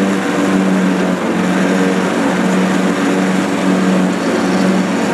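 Husqvarna 48-inch zero-turn mower running steadily at a constant engine hum, its deck blades cutting through tall, thick winter rye.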